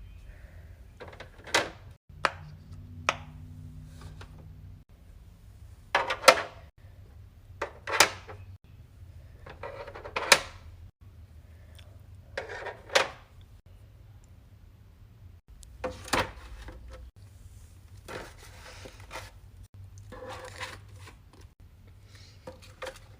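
Fidget toys being handled and set down into a plastic organizer: sharp knocks and short clatters every second or two, over a faint low hum.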